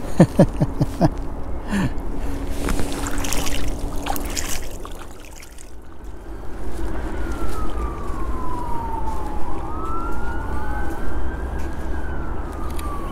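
A distant siren wailing, its pitch slowly rising, falling and rising again, over a steady low rumble. A few sharp knocks come in the first couple of seconds.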